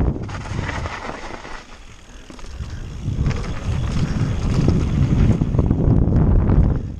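Mountain bike riding down a dirt trail: wind buffeting the microphone over the rumble of the tyres and rattling of the bike. It eases off about two seconds in, then picks up again.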